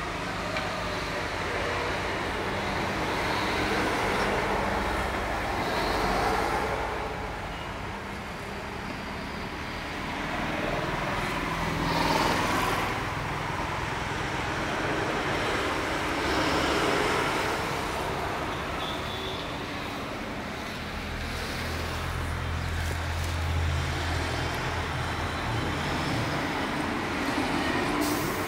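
Road traffic going past, with several vehicles in turn swelling up and fading away, and a low engine hum in the second half.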